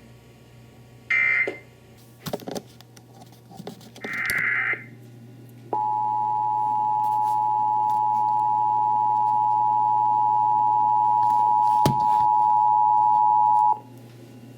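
Emergency Alert System broadcast tones: two short bursts of warbling digital data tones, then the two-tone EAS attention signal starting about six seconds in, a steady, loud dual tone held for about eight seconds before cutting off. The signal announces an incoming missing-child alert.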